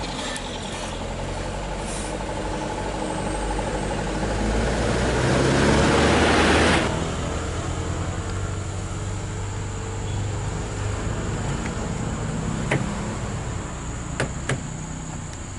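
Scania R580's V8 diesel hauling a heavy lowboy load uphill, the engine and rolling noise swelling over the first seven seconds and then cutting off abruptly. After that a quieter steady low engine hum with a constant high tone, and a few light clicks near the end.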